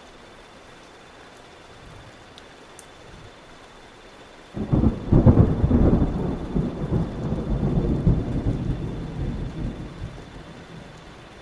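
Thunderstorm: a steady hiss of rain, then about four and a half seconds in a sudden loud clap of thunder that rumbles on for several seconds and slowly fades.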